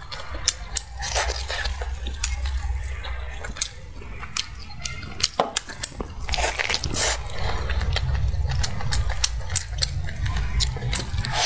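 Close-miked eating of braised pork leg: gloved hands pulling the meat apart, biting and chewing, with many sharp mouth clicks throughout.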